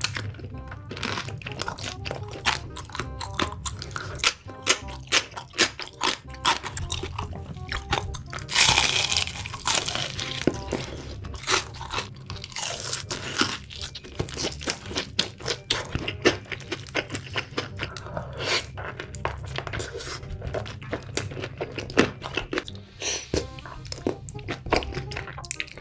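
Close-miked eating of crisp fried chicken: many sharp crunches and chewing, with one louder, longer crunch about nine seconds in, over background music.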